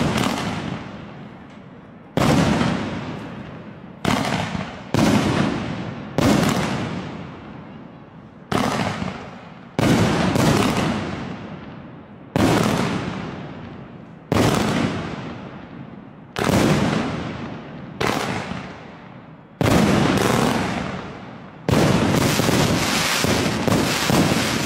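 Meifeng 2-inch 49-shot "Battle" fireworks cake firing shell after shell, about one every one to two seconds. Each shot is a sharp bang that trails off over a second or more. Near the end the shots come fast enough to run together into a continuous barrage.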